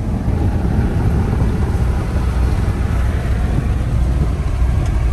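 Road and engine noise of a vehicle driving at speed, heard from inside the cab: a steady low rumble with an even hiss of tyre and wind noise over it.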